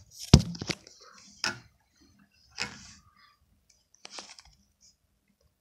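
A handful of sharp clicks and knocks, five or so spread over about four seconds, the loudest about a third of a second in.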